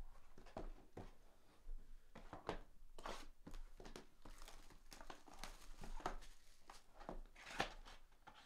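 Trading-card packs and cards being handled: faint, irregular crinkling of foil wrappers and light clicks and slides of cards.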